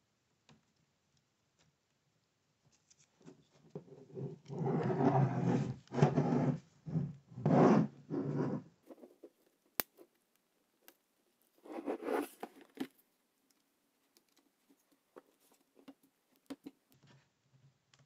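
A plastic pry tool scraping and levering along the seam of a Lenovo IdeaPad 1i's plastic bottom cover to unclip it: a run of loud rasping scrapes a few seconds in, a single sharp click, then one more short scrape.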